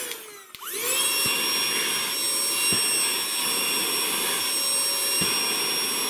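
Handheld cordless car vacuum motor running with its nozzle pressed against a flat sheet of card. Just after the start it briefly winds down, then spins back up within about a second and runs steadily with a high whine.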